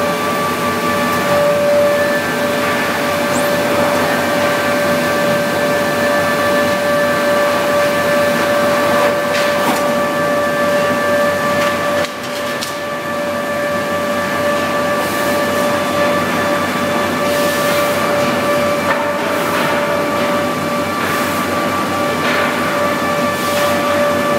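REX planing machine running steadily, a constant high whine over a dense rushing noise, with a brief drop in level about halfway through.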